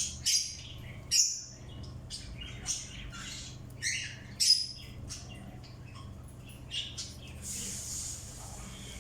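Birds chirping and calling in quick, short notes, a few of them sharply louder. Near the end the calls give way to a steady hiss.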